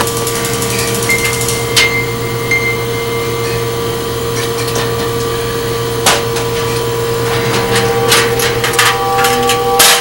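Metal locker being handled: a few sharp knocks and clicks, coming closer together near the end, over a steady hum.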